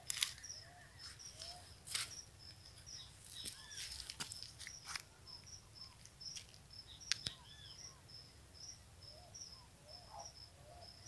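Faint outdoor ambience of birds: short arched chirps call here and there over a high chirp repeated steadily at short even intervals. A few sharp clicks cut through, the loudest about seven seconds in.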